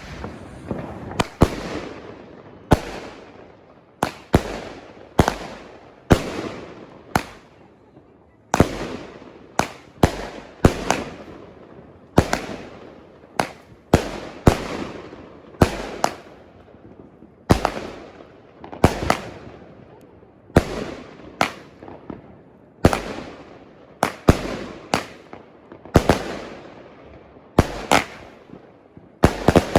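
200-gram consumer firework cake firing shot after shot, about one sharp bang a second, sometimes two in quick succession, each trailing off in a short echo.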